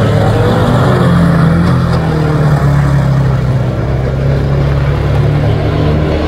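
Banger racing cars' engines running loud and steady, their pitch holding fairly level with only small rises and falls.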